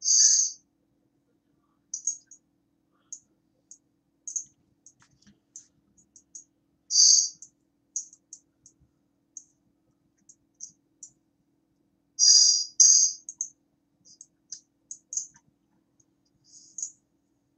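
Irregular light clicks, a few to several a second, with louder ones near the start, about seven seconds in and twice about twelve seconds in, over a faint steady hum.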